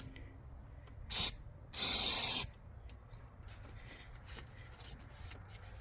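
Aerosol cleaner sprayed onto spilled oil on the engine: a short puff of hiss about a second in, then a louder spray lasting under a second.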